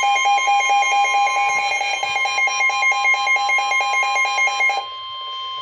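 NOAA Weather Radio's steady 1050 Hz warning alarm tone, the signal that a new warning is about to be read, with a weather radio receiver's rapid pulsing alarm beeping over it. The beeping stops near the end, leaving the steady tone alone.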